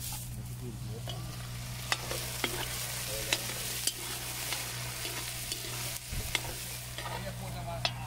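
Fish sizzling in hot oil in a pot as it is cooked down for brown stew, with a spoon clinking against the pot several times as it is stirred. A steady low hum runs underneath.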